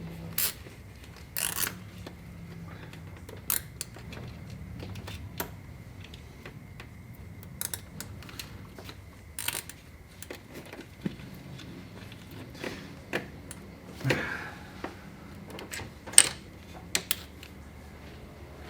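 Hands working a nylon zip tie around a transmission dipstick tube: scattered sharp clicks, taps and short rattles, the loudest near the end, over a faint steady high hum.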